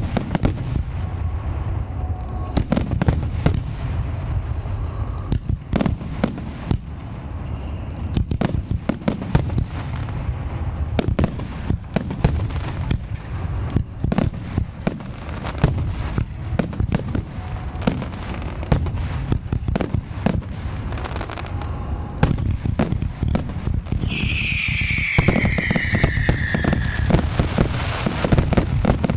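Aerial fireworks display: a dense, continuous run of shell bursts and booms with crackle, the reports coming several to the second. Near the end a falling whistle sounds for about three seconds over the bursts.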